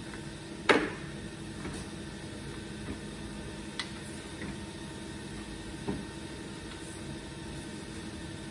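Metal clicks and knocks from a hand-operated press being brought down onto a CNC mill spindle's drawbar: one sharp clack about a second in, then two lighter clicks later. A steady machine hum runs underneath.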